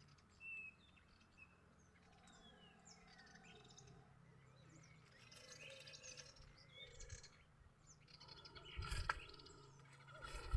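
Faint bird calls: scattered short chirps and whistles, one of them a longer falling whistle.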